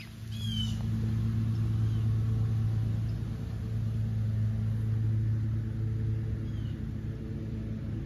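Steady, unchanging engine hum, with two brief high bird chirps, one about half a second in and one near the end.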